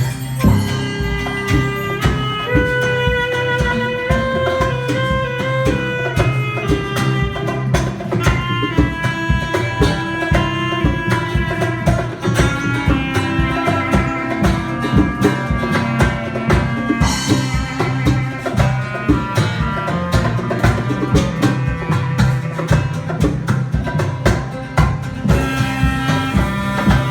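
A band playing an instrumental piece: a fast, steady drum rhythm under a stepping melody line.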